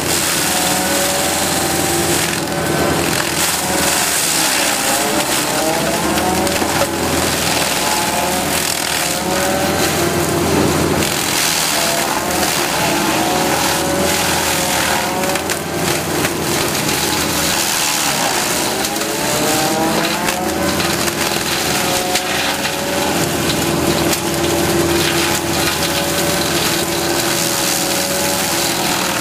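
Excavator-mounted FAE SCM stump cutter grinding a stump: the machine runs loud and steady, its pitch wavering up and down as the rotor's teeth bite, over the crunch of wood being chipped.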